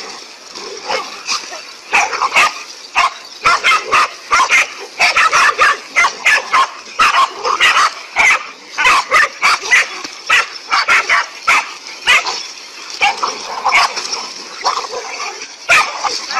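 Several dogs barking rapidly and over one another, with a few higher yips, as they surround and lunge at a large snake.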